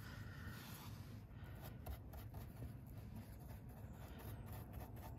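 Faint brushing and light scratching of a paintbrush working paint onto the cut metal edge of a hole in a van's side panel, over a low steady background rumble.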